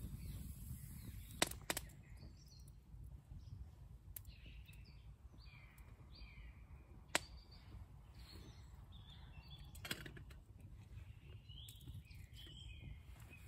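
Small woodland birds chirping and calling over and over, over a low steady rumble, with a few sharp pops from a small wood fire; the loudest pops come about a second and a half in and around seven seconds.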